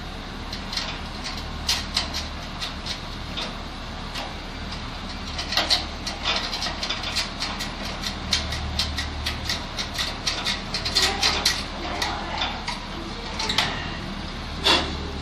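Irregular small clicks and taps of hands working on the gas water heater's control valve and wiring, the loudest near the end, over a steady low hum.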